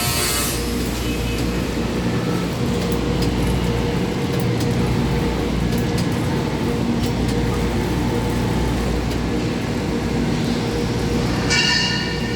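Steady low rumble and hum of heavy machinery in a steel fabrication shop, with a few faint clicks. Near the end a higher, several-toned sound comes in over it.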